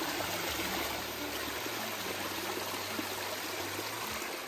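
Shallow stream water running and splashing over rocks in small cascades, a steady rushing.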